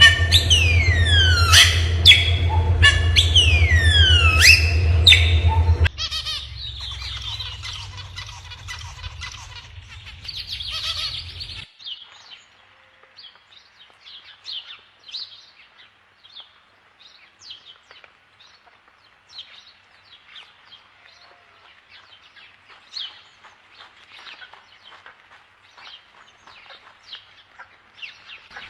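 Bird calls: a rapid series of loud, falling whistles over a steady low hum for the first six seconds or so, then fading to faint, scattered chirps for the rest.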